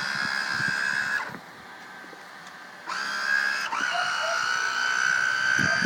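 Small electric motor of a toy RC boat whining at a steady high pitch. About a second in it stops with a falling whine, then about a second and a half later it spins up again and keeps running.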